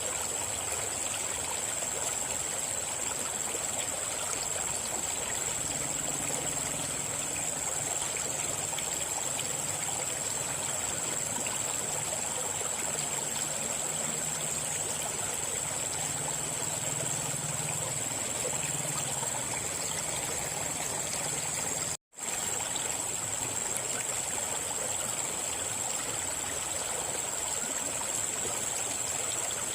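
River water flowing steadily, an even rushing and trickling, with a thin steady high tone above it. The sound cuts out for a split second about two-thirds of the way through.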